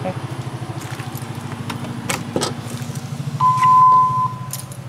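Door latch clicking as the door is opened, then a single electronic entry beep: one steady tone lasting nearly a second. A steady low engine-like hum runs underneath.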